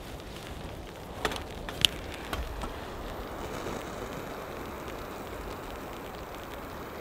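A few sharp clicks, the loudest a little under two seconds in, then a steady hiss as a lighter's flame is held to the tinder in a small wood-burning box stove.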